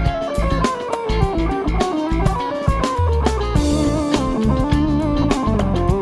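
Handmade electric guitar through a Mesa Boogie Express 5:25 amp, playing a fast lead line that winds downward in pitch over a backing track of drums and bass.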